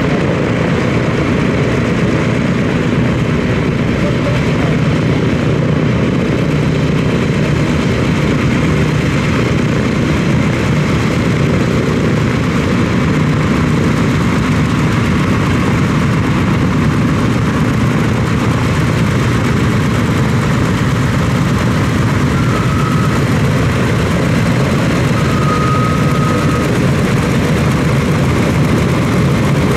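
Boeing B-17G Flying Fortress taxiing, its four Wright R-1820 Cyclone nine-cylinder radial engines running at low power in a steady, loud drone. Two brief high squeals near the end.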